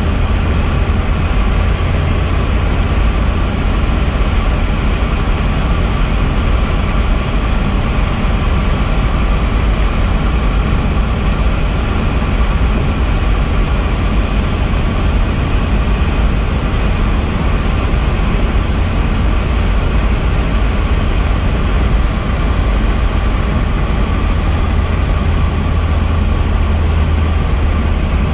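Steady road, wind and engine noise inside the cabin of a 1981 VW Rabbit Convertible cruising at highway speed, dominated by a deep, even rumble.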